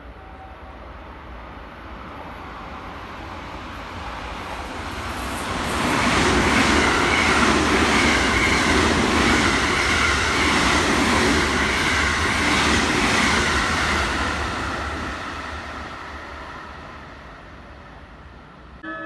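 JR West Special Rapid Service electric train passing through the station at speed without stopping. The noise builds over a few seconds, is loudest for about eight seconds as the cars go by, then fades away.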